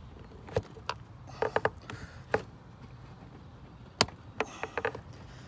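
Scattered sharp clicks and knocks of a wrench and plastic engine-bay parts being handled while a bolt is taken off near the air box, some in quick clusters of three or four, the loudest about four seconds in.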